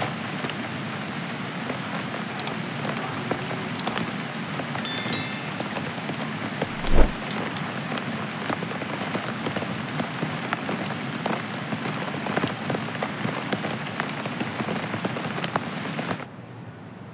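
Steady heavy rain falling on the river, rocks and leaves, a dense hiss full of small drop ticks. There is a single loud thump about seven seconds in. Near the end the rain cuts off to a quieter steady hiss.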